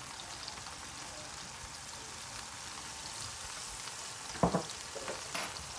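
Courgette frying in olive oil in a pan, a steady sizzle, with a short knock about four and a half seconds in and a couple of smaller ones after it.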